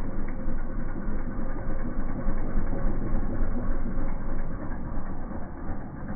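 ATV (four-wheeler) engine running with a fast, steady rattle.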